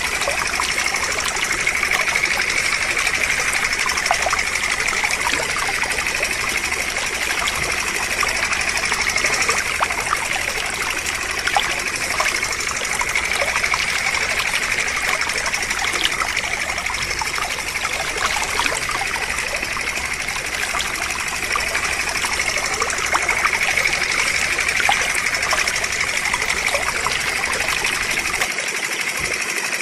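A thin stream of water trickling and splashing steadily onto small plastic toy tractors, washing sand off them.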